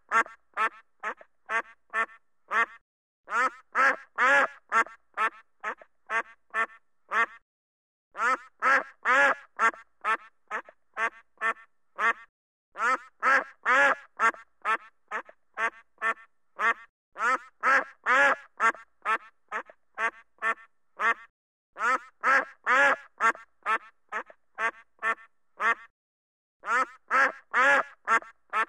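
Duck quacking in repeated runs, about one every four to five seconds: each run opens with a few loud quacks and fades into quieter, quicker ones, with short pauses between runs.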